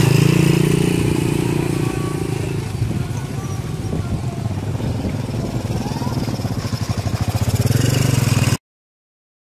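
Carriages of the Krakatau Express passenger train clattering and scraping over the rails as they pull away, mixed with a motorcycle engine running close by, which pulses faster and louder toward the end. The sound cuts off suddenly near the end.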